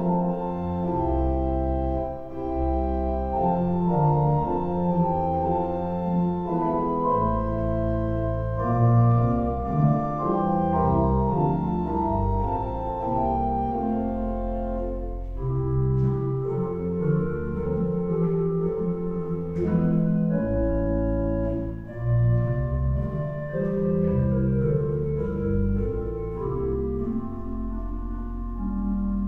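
Church pipe organ playing a hymn tune in slow, sustained chords, with a deep bass line under the melody.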